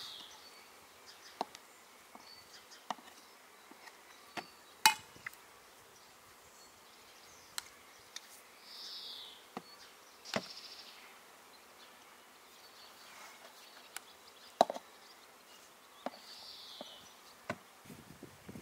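Scattered light knocks and clicks, about a dozen of them with the loudest about five seconds in, and three or four short high-pitched insect buzzes.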